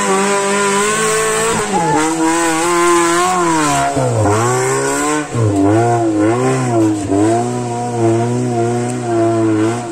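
Off-road jeep's engine revving hard under load as it climbs a steep dirt slope, its pitch dropping and climbing again several times as the throttle is worked.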